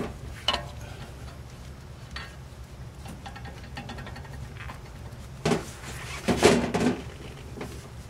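A large steel spanner clinking and scraping against the hex nut of a refrigerant pipe fitting on an air-conditioner compressor as it is fitted and worked, with single knocks about half a second and two seconds in and a louder clatter between five and seven seconds in, over a steady low hum.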